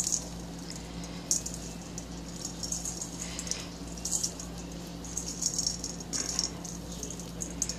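Dry breadcrumbs poured and shaken from a container into a stainless steel bowl of ground beef: a soft, gritty hiss that comes in several spurts.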